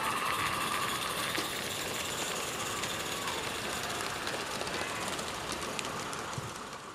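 Live-steam G scale model steam locomotive running past hauling wagons, with steam hissing and rapid fine clicking, fading as it moves away.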